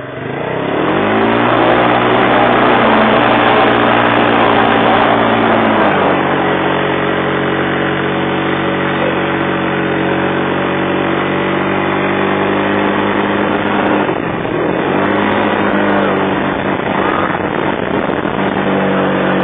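Quad bike engine pulling a towed pedal go-kart, revving up in the first couple of seconds and then running at steady high revs. The revs drop at about six seconds and dip again around fourteen seconds before climbing back.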